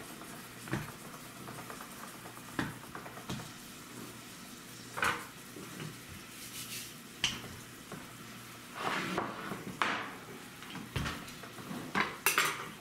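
Scattered soft knocks and rustles of hands working pie dough on a floured wooden cutting board and a wooden rolling pin being picked up and set rolling on it, over a steady faint hiss. The loudest knocks come about a third of the way in and in the last few seconds as the rolling starts.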